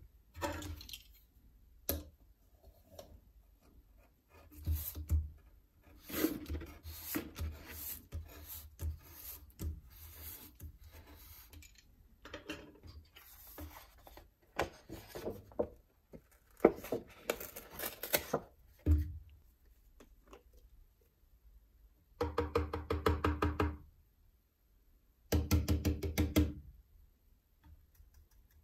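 A thin reflective foil sheet being flexed, slid and handled on a wooden bench, giving irregular crackling and rustling with light knocks that come in clusters. Near the end there are two short bursts of rapid, evenly spaced rattling clicks, each about a second and a half long.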